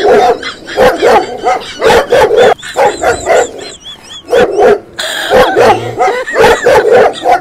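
Dog barking sounds: loud barks in quick runs of a few a second, with a thin, high, wavering whine between them about three seconds in.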